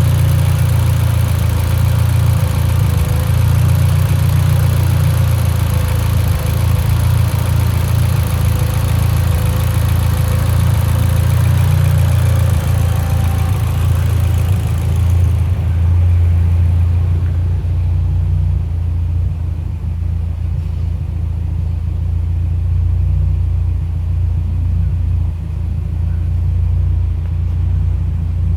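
Mitsubishi Lancer Evolution X's turbocharged 2.0-litre four-cylinder idling with a steady low rumble, misfiring at idle, which the owner puts down to a lean idle mixture. A higher hiss over the idle stops about halfway through.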